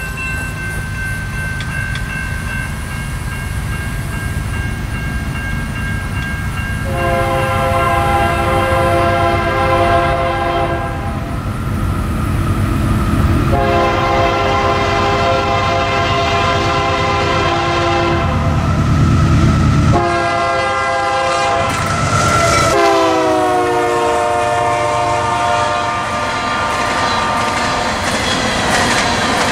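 Diesel freight locomotive sounding its multi-note horn in long blasts over the steady rumble of the train: two long blasts, then a third near the end whose pitch falls as the locomotive passes.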